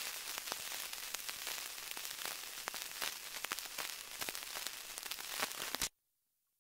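Surface noise of a 1921 Regal shellac 78 rpm record with no music left: steady hiss with scattered crackles and clicks as the stylus runs on past the end of the recording. It cuts off suddenly near the end.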